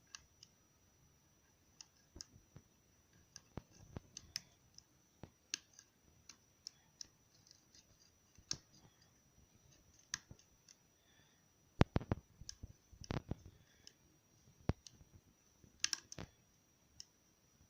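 Metal lock pick and tension wrench working the pins of a pin-tumbler lock cylinder, irregular small clicks and scrapes with a louder cluster of clicks about two-thirds of the way through. The core is sloppy, with loose tolerances and standard pins, no security pins.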